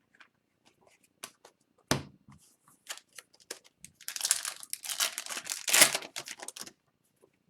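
Crinkling and tearing of a foil hockey card pack wrapper, with scattered clicks and a knock about two seconds in, then a dense run of crackling from about four seconds in.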